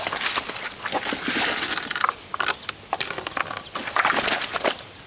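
Irregular crackling and splashing of a wet plastic mat as a large catfish is gripped by the mouth and handled on it, dying down near the end.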